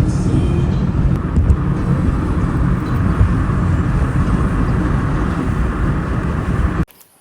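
Steady, loud road and wind noise from a moving car, rumbling low; it cuts off abruptly near the end.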